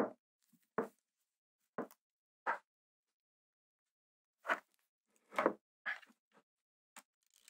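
Short, separate knocks and clicks of a Pentax ME Super camera body being handled and pressed together by gloved hands, about eight in all, with silence between them.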